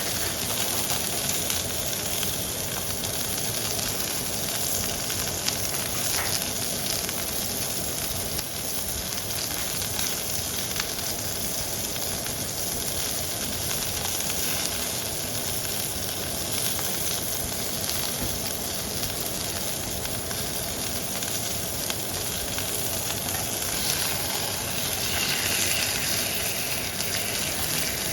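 Steak searing in a very hot nitrided carbon steel pan: a steady, loud sizzle with a thick crackle of spattering fat.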